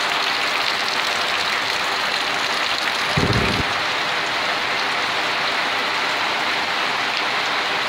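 Heavy rain falling steadily, beating on a pop-up canopy and pouring off its edge in streams. A brief low thump comes about three seconds in.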